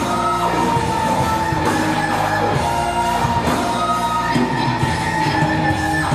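Loud pop-rock backing music, continuous with held melodic notes.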